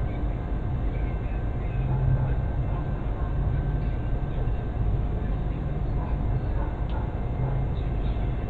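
An engine idling: a steady low rumble with a faint constant hum above it.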